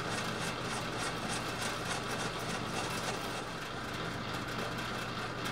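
Metal lathe running steadily with a constant hum as a cutting tool turns down a rusty, splined scrap-steel shaft.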